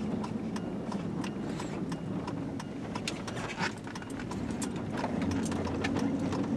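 Car turn-signal indicator ticking at an even rate over engine and road noise heard inside the cabin, the engine hum growing a little louder near the end as the car pulls through the turn.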